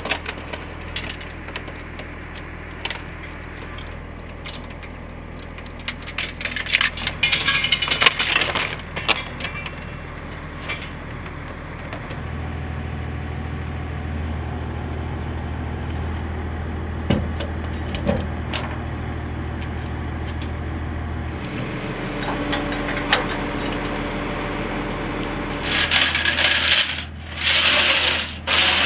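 Steel tow chains clinking and rattling as they are handled and dragged across the steel diamond-plate bed of a rollback tow truck, in bursts that are loudest about a quarter of the way in and near the end. A steady low engine hum runs underneath.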